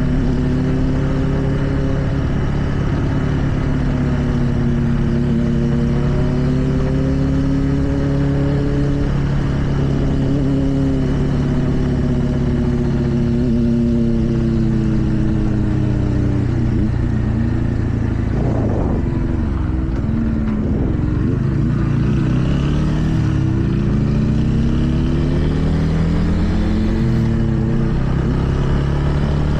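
TVS Ronin's single-cylinder engine running under way, its pitch rising and falling gently with the throttle. About two-thirds of the way in the pitch drops low with a few quick dips, as with gear changes while slowing, then climbs steadily near the end as the bike accelerates.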